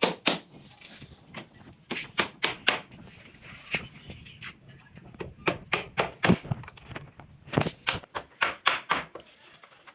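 Repeated sharp knocks of a tool striking wood, coming in irregular groups of several blows with short pauses between.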